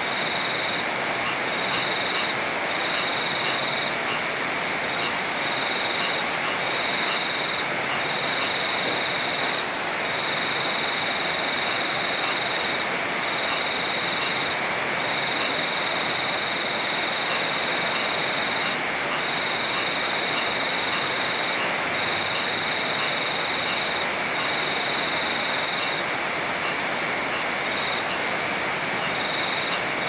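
Heavy rain pouring steadily, with a river rushing beneath it. Over it runs a thin, high tone that keeps breaking off and starting again, with faint regular ticks.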